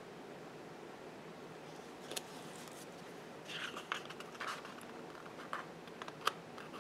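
Faint rustling and a few light clicks from sticker sheets and small tools being handled, over quiet room hiss; the rustling clusters a little past the middle.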